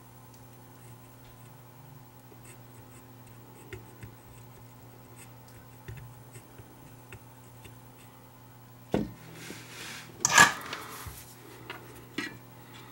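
Faint small clicks and rubbing as fingers handle a wire against the circuit board and metal chassis of an opened walkie-talkie, over a steady low hum. There are two louder brief rustles, about 9 and 10 seconds in.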